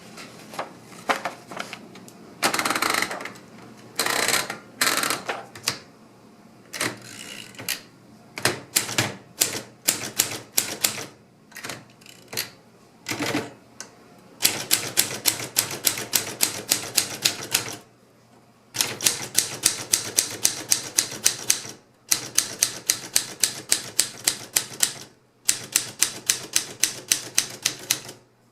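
Alpina SK24 manual typewriter being typed on. Scattered keystrokes and a few longer noisy sounds in the first half, then fast even runs of keystrokes, several a second, broken by short pauses.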